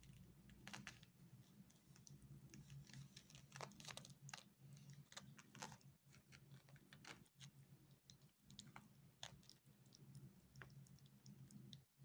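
Newborn kittens suckling at their mother, a faint run of quick, irregular clicks and smacks, over a low, steady purr.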